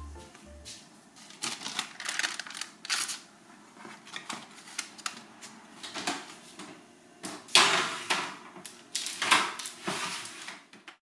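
Baking tray and oven rack clattering as a tray of bread rolls is slid into an oven: a run of sharp metal clicks, knocks and scrapes, loudest about seven and a half seconds in and again about nine seconds in.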